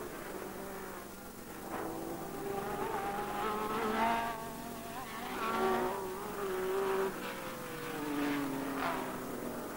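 1960s Formula One race car engines at full song as the cars pass, the pitch rising and falling several times with gear changes and a long falling glide near the end as a car goes by.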